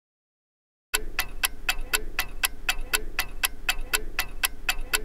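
Clock-ticking sound effect for a countdown timer: quick, even ticks, about four a second, starting about a second in after dead silence.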